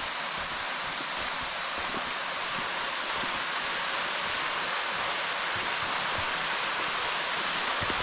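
Steady rushing hiss of a small waterfall splashing into its pool.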